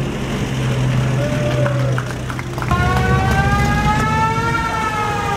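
Engines of World War II military vehicles running as they drive slowly past. About two and a half seconds in, a siren starts, its pitch rising slowly and then falling back.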